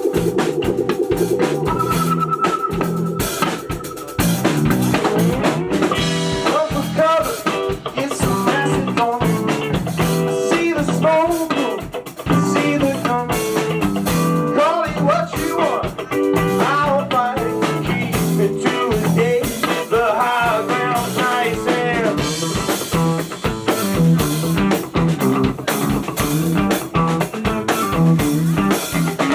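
A band playing an instrumental passage on drum kit, guitar and bass. It opens on held notes, then about four seconds in a steady drum-and-bass groove starts under a busy, bending lead line.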